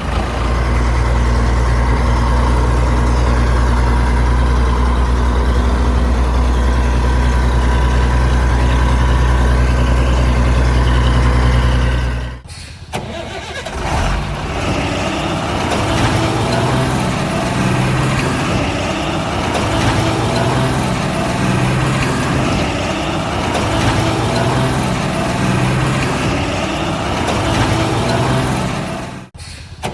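Heavy vehicle engine idling steadily. After a short break about twelve seconds in, an engine runs on with its note swelling roughly every two seconds, and there is another brief break near the end.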